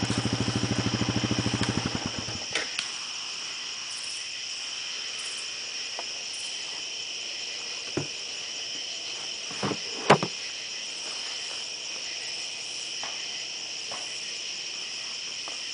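A small engine idling with a steady pulse, switched off about two and a half seconds in. Then a steady chorus of crickets, with a few short knocks.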